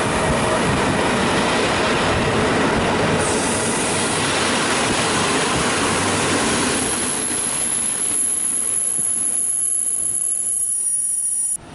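A train running through the station with a steady rumble of wheels on rail. The rumble thins out over the later seconds, and a thin high-pitched wheel squeal comes in. It all cuts off suddenly near the end.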